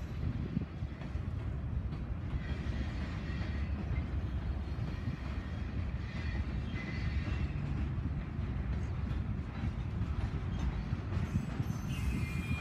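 Freight cars of a mixed freight train rolling past in a steady rumble of wheels on rail, with a few brief faint high squeals from the wheels.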